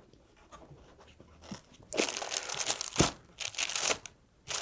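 Packaging crinkling and rustling in several bursts as loudspeaker accessories are unpacked by hand, with a sharp knock about three seconds in.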